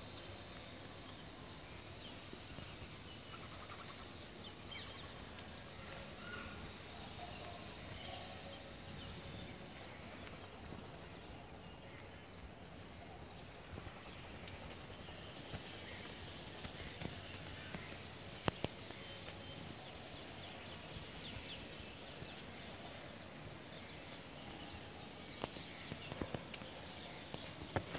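Faint outdoor ambience with occasional distant bird calls, and a few soft clicks and taps in the second half.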